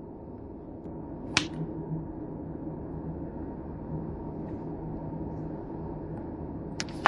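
Sharp clicks from handling a smartphone and its packaging during an unboxing: one about a second and a half in, then two close together near the end, the last the loudest. A steady low hum runs underneath.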